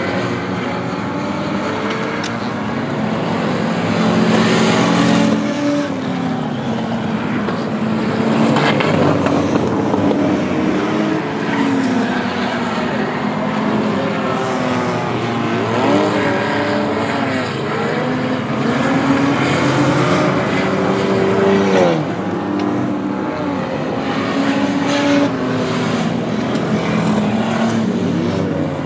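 A field of V6 enduro race cars running in a pack, many engines sounding at once and rising and falling in pitch as the drivers get on and off the throttle through the turns.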